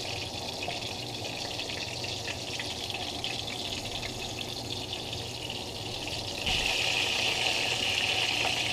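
Breaded fish pieces frying in hot oil: a steady sizzle with fine crackling, the hiss growing louder about two-thirds of the way through.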